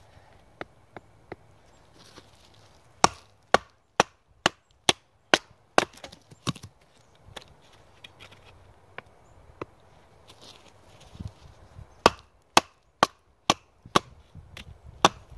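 Batoning: a wooden baton striking the spine of a knife to split firewood, in two runs of sharp wooden knocks about two a second, with a few lighter taps near the start.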